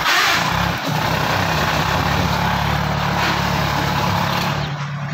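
Diesel tractor engines of a Sonalika 35 and a Powertrac Euro 60 running hard under heavy load in a tug-of-war, one dragging the other. A steady low drone, with a short rush of noise right at the start.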